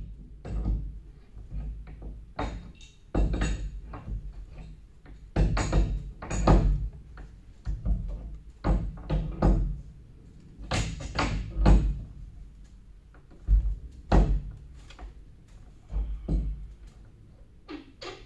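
Irregular heavy knocks and thunks from work on a Cat BU118 sweeper's broom during a brush change, with more than a dozen hits spaced unevenly, some with a short metallic ring.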